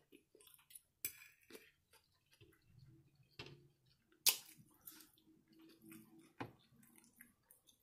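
Metal fork clicking and scraping against a plate of food, with quiet chewing between: a scatter of light clicks, the sharpest about four seconds in.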